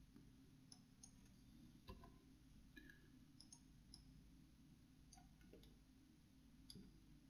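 Near silence with a low background hum and about ten faint, scattered computer mouse clicks; the loudest comes about two seconds in.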